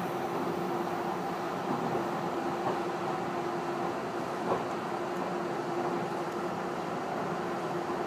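Tobu 50090 series electric train running at speed, heard from inside the passenger car: steady running noise with a steady hum under it, and a single click about four and a half seconds in.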